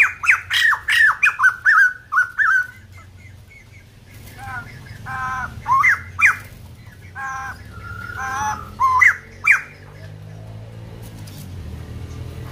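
White-crested laughingthrush calling in three bouts of quick, loud squawky notes, many of them sharp upward sweeps, with short pauses between. The calls stop about ten seconds in, leaving a low steady hum.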